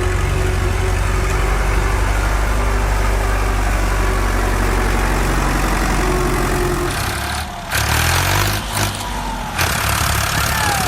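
An engine running steadily at idle with a low hum. About seven seconds in, the hum gives way to noisier sound with bursts of hiss.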